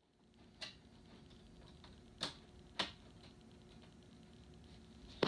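Three short, faint clicks of plastic Lego pieces being handled and pressed back into place on the model.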